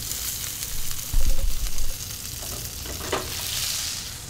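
King salmon fillet and butter sizzling hard in a very hot cast iron skillet, the pan hot enough that the fish is smoking. There is a loud low bump about a second in.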